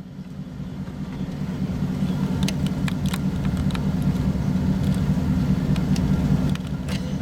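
A car driving: a steady engine and road drone that builds over the first second or two, then holds.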